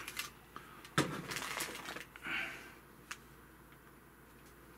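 Small glass candle lantern being handled and set down on a tabletop: a sharp knock about a second in, with light clicks and rustling around it, then quiet handling.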